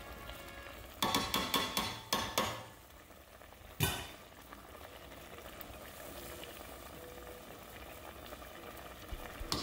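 Tongs knocking and scraping against a stainless steel pot in a quick cluster of clatters, then one sharp knock, as seared chuck steaks are moved in the braising liquid. After that the liquid sizzles and simmers faintly and steadily.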